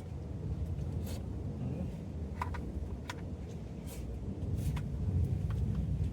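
Wood-burning stove fire with scattered sharp crackles and pops over a steady low rumble.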